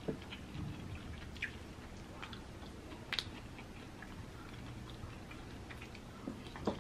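Faint, scattered clicks and crackles of cooked snow crab shell and meat being picked apart by hand, with quiet chewing.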